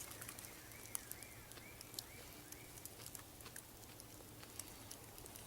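Faint, irregular crunching clicks of someone chewing raw wild greens and a wild garlic bulb. Through the first half, a bird gives a quick series of about six short whistled notes that rise and fall.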